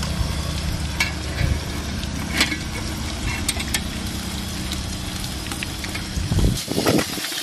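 Onions sizzling steadily in hot oil in an aluminium handi over a steady low burner hum, with a few short clinks and knocks as raw mutton pieces are dropped into the pot. The hum stops about six seconds in.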